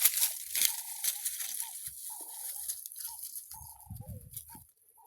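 Crunching and scraping on dry soil, loudest at first and fading, as a stick tethered to a string scratches a marking circle into the ground.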